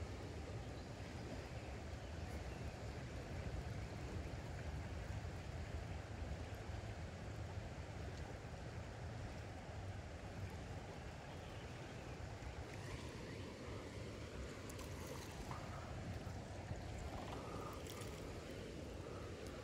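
River current flowing and lapping close to the water surface: a steady rushing wash with a deep low rumble under it. A few faint ticks in the last several seconds.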